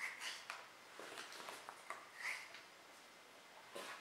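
Foam darts being pushed into the plastic rotating cylinder of a Nerf Elite Strongarm blaster: a few faint, separate clicks and light plastic handling noises.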